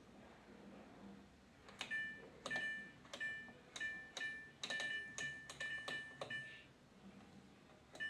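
Samsung tumble dryer control panel beeping as its program selector dial is turned, one short electronic beep per step. About a dozen quick beeps come in an uneven run from about two seconds in until past six seconds.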